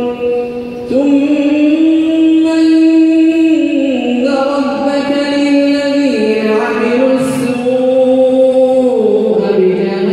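A man's voice reciting the Quran in Arabic in a melodic chant, holding long notes that step up and down in pitch, with a brief pause for breath near the start.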